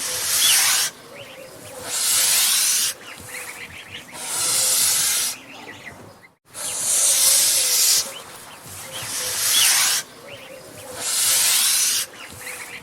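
Angry goose hissing in threat: harsh hisses of about a second each, six or so in a row with short pauses between them. There is a brief dropout about halfway through.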